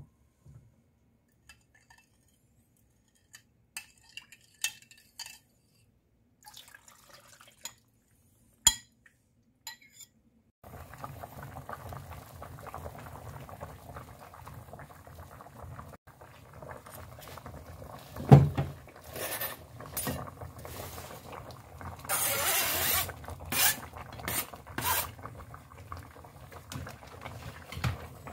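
A few light clinks of a bowl and utensil on a pan, then from about ten seconds in, braised cutlassfish stew bubbling at the boil in a frying pan. Partway through there is a heavy knock and then bursts of scraping and clatter as vegetables are tipped in from a cutting board.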